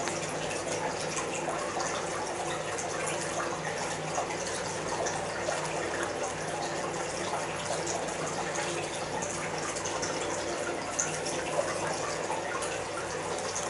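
A steady rushing hiss with a low hum under it, and small faint clicks now and then.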